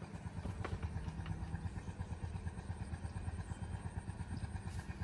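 Small engine running steadily with a fast, even putter, with a couple of faint knocks about half a second and a second in.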